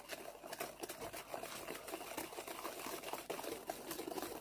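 A hand wire whisk beating flour into thick cake batter in a stainless steel bowl: quick, irregular clicks and scrapes of the wires against the bowl, with the wet stir of the batter.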